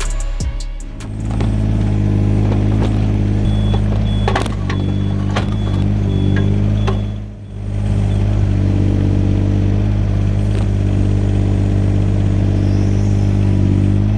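Yanmar VIO17 mini excavator's three-cylinder diesel engine running steadily under work, with a few sharp knocks near the middle.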